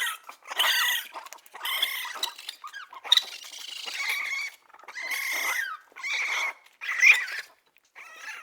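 A small animal's high-pitched squeals and squeaks, repeated about once a second.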